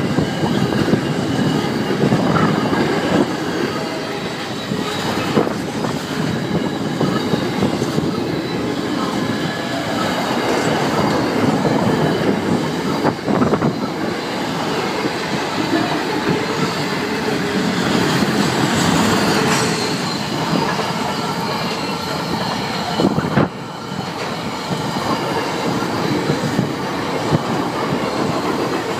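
Freight train wagons rolling past at close range: a steady rumble of steel wheels on rail, with faint thin squeals from the wheels and a couple of sharp clanks from the wagons.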